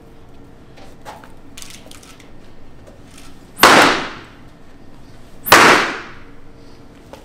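A Titan LED 4-foot LED tube slammed down onto a cardboard-covered table twice, about two seconds apart, each a sharp smack that dies away over about half a second. The tube does not break and stays lit.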